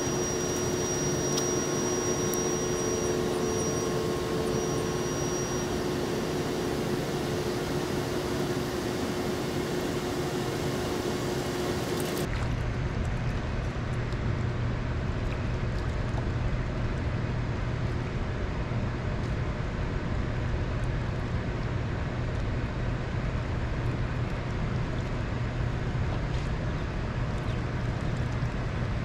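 Steady drone of a boat motor over open water. About twelve seconds in the sound changes abruptly: the high hiss drops away and a low hum carries on.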